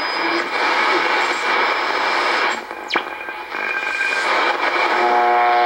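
Icom IC-R8500 shortwave receiver in AM mode being tuned across the 25-metre band: a rushing static hiss, with a whistle that sweeps quickly down in pitch about three seconds in, then a steady buzzing tone that comes in near the end.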